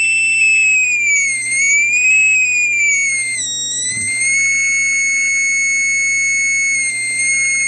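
Beckman HD-153 digital multimeter's audible voltage indicator: a continuous high tone that follows the voltage reading. Its pitch slides up and down twice, dips about three and a half seconds in, then holds steady.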